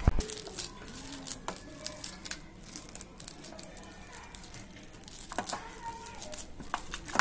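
Bare hand mashing and squeezing pieces of peeled green banana (kanchkola) in a stainless steel bowl: soft squishing with a steady run of small clicks and scrapes of fingers against the bowl.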